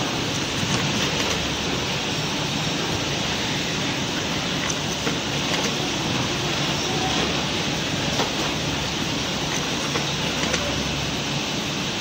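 Steady hiss and rumble of factory machinery around an automatic film-wrapping machine, with faint clicks now and then.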